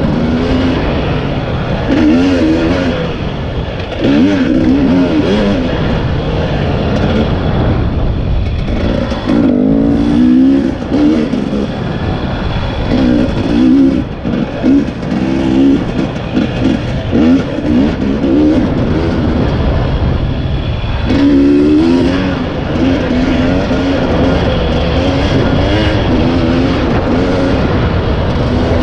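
2020 KTM 300 EXC's single-cylinder two-stroke engine revving up and falling back again and again as the throttle is worked, with a stretch of quick on-off throttle blips midway.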